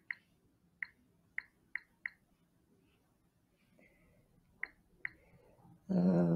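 Smartphone touchscreen keyboard clicks as a contact is typed in: short single ticks, five in the first two seconds and two more a little before the end. Near the end a short pitched hum, as of a voice, comes in.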